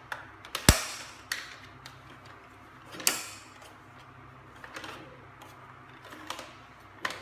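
Scattered hard plastic clicks and knocks from a toy foam-dart blaster being handled and its parts folded into place, the sharpest click about a second in.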